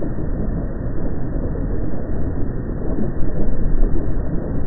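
Low, steady rumbling noise from a recording made at the active Furnas volcano, dense and muffled, with no distinct events.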